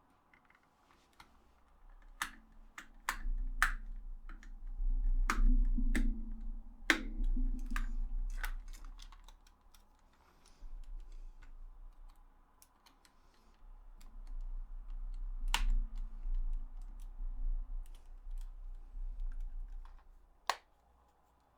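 Irregular sharp plastic clicks and knocks as a DualShock 4 controller is handled and put back together, bunched in the first half with single louder clicks later, over stretches of low rumble.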